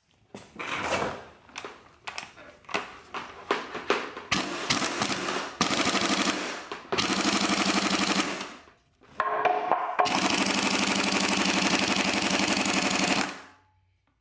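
Impact wrench hammering on an engine's crankshaft pulley bolt: a string of short bursts, then longer runs of one to three seconds, the longest near the end. The bolt does not break loose.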